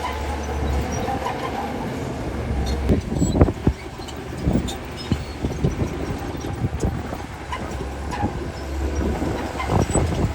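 Heavy earthmoving machinery running with a steady low diesel rumble, with scattered metallic clanks and knocks. The loudest knock comes a little after three seconds in.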